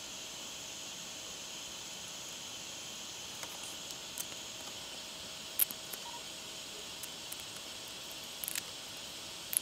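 Steady low hiss with a few small, sharp clicks and taps, scattered through the second half, from fingers handling a freshly milled copper-clad PCB disc and picking at its back.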